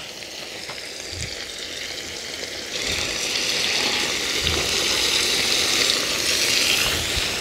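Lamb ribs and onions frying in hot lamb fat in a kazan, a steady sizzle. About three seconds in the sizzle grows louder as the carrots go into the pot.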